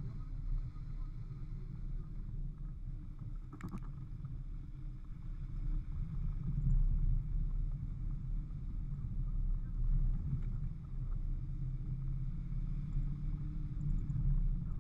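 Off-road 4x4's engine running as the vehicle drives over a rutted dirt track: a low drone that swells a few times, with one short knock about four seconds in.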